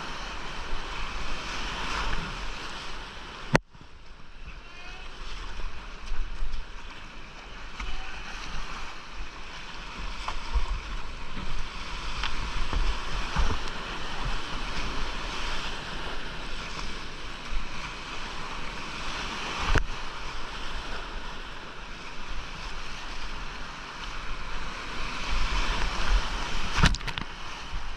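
Rushing whitewater and splashing around a kayak running a rocky creek rapid at low water. The sound dips sharply for a moment about three and a half seconds in, and there are a couple of sharp knocks later on.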